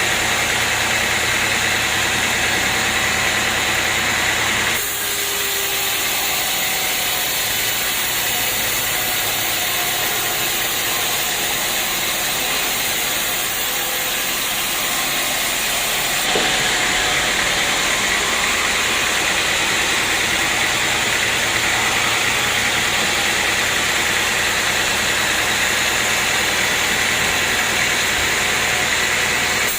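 Portable sawmill running steadily, its engine and saw making a dense, even noise; the sound shifts abruptly about five seconds in and again about halfway through.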